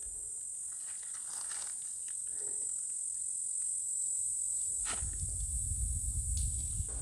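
Insects in dry bushveld buzzing steadily in one continuous high-pitched shrill. A low rumble on the microphone builds from about five seconds in.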